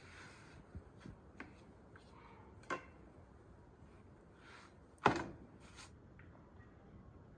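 Thin flatbread dough is handled on a wooden rolling pin and laid over a metal saj griddle, giving soft swishes and light clicks and knocks. A sharper knock just after five seconds in is the loudest sound.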